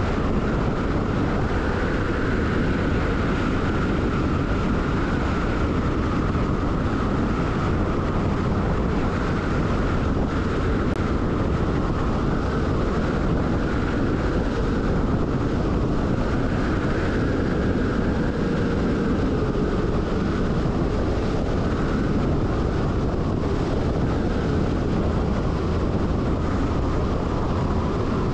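MAN LE 280 B truck's diesel engine and tyres running at a steady cruising speed on a sealed road, with wind on the microphone. The sound stays even throughout, with a faint steady whine in the mid range.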